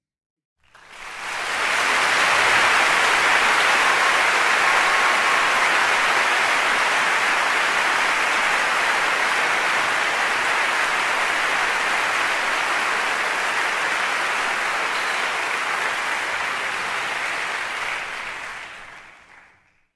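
Crowd applauding steadily, fading in about a second in and fading out near the end.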